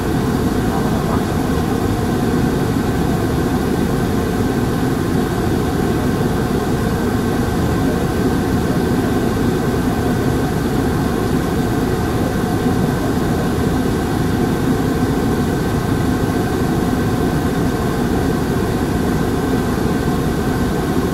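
Diesel engine of a Hankyu non-step city bus (No. 383) running steadily, heard from inside the bus with a low, even drone and a faint steady whine, without any clear rise or fall in revs.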